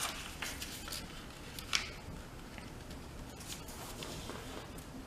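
A sheet of paper being folded and creased by hand: soft rustles and scrapes, one a little louder just under two seconds in.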